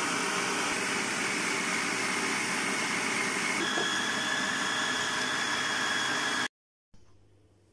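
Electric food processor running at speed, whipping egg whites for meringue: a steady motor whine with a high-pitched tone. It cuts off suddenly about six and a half seconds in.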